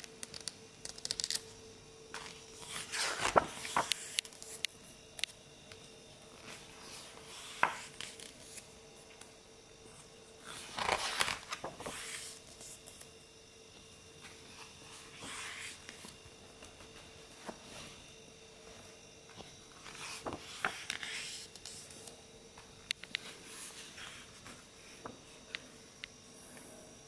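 Pages of a large glossy art book turned and smoothed by hand: a series of rustling, sliding sweeps of paper, the loudest about three seconds in and about eleven seconds in, over a faint steady hum.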